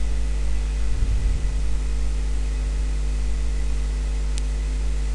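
Steady electrical mains hum with even background hiss on a desktop voice-over microphone.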